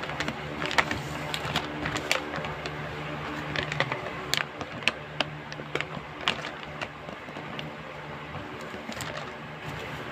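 Gift packaging being handled and opened: irregular clicks, taps and crinkles, over a steady low hum.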